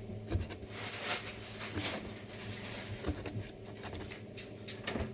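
Meat cleaver scoring a whole raw fish on a wooden cutting board: scattered knocks of the blade against the board and wet cutting through skin and flesh.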